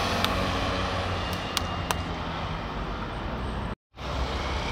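Road traffic: a passing vehicle's engine hums steadily over a wash of street noise, with a few sharp clicks. Near the end it cuts off abruptly and gives way to a different steady outdoor noise.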